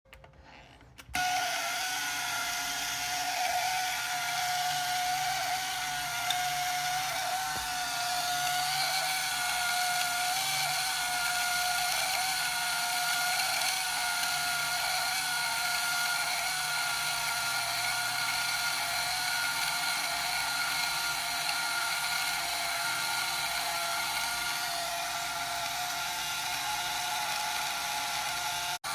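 Canon Autoboy 35 mm film camera's built-in motor winding the film, a steady, drill-like mechanical whine at an unchanging pitch that starts about a second in.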